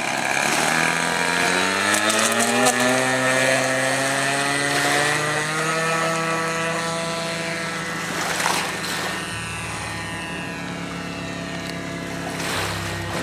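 Radio-controlled seaplane's model engine throttling up, its pitch rising over the first two seconds, then running at full power through the takeoff run off the water and the climb, its note sagging slightly as the plane pulls away.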